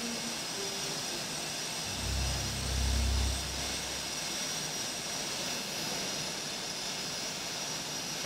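Jet engines of an F/A-18D Hornet running on the ground: a steady high-pitched whine over a hiss, with a deep rumble swelling for a second or two about two seconds in.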